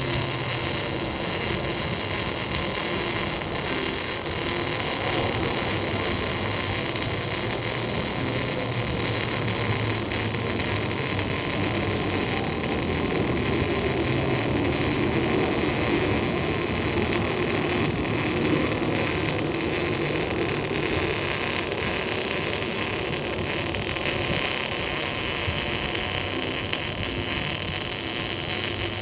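Edon NBC 250 single-phase MIG welder arc welding a fillet joint on 1.09 mm thin steel plate, a steady, continuous sizzle. The arc runs smoothly without breaks, laying an unbroken bead that does not burn through the thin sheet.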